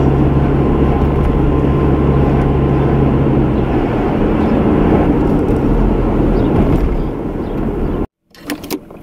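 Car engine and road noise heard from inside the cabin while driving: a loud, steady low rumble and hum. It cuts off abruptly near the end, leaving a few faint clicks.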